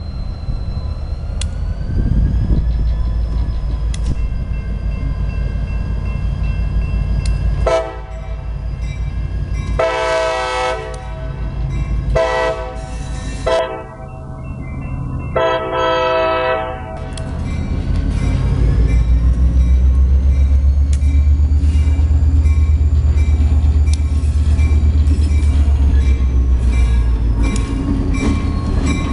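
CSX diesel freight locomotive running with a steady low engine rumble as it approaches a grade crossing, sounding its air horn in a series of blasts from about eight seconds in until about seventeen seconds. After the horn the engine's rumble grows louder and deeper as the locomotive comes close.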